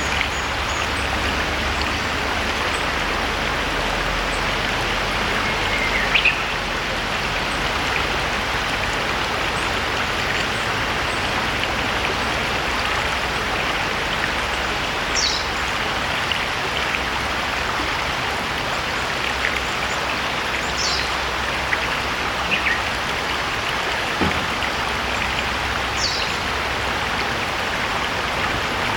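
Steady rushing murmur of a shallow river flowing over stones. A bird gives short, high, falling calls three times in the second half.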